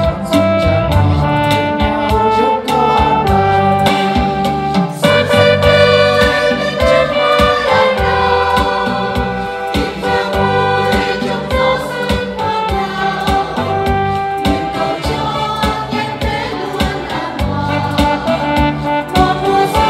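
Small choir of women's voices singing a Vietnamese New Year hymn, accompanied by an electronic keyboard.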